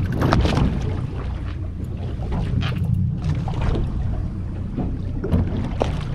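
Steady low rumble of a boat on open sea, with wind and water noise, broken by scattered sharp knocks and clatters on deck.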